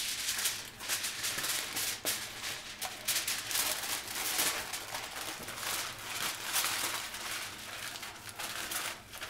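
Aluminium foil crinkling and crackling in irregular handfuls as it is folded and pressed around a bacon-wrapped stuffed potato.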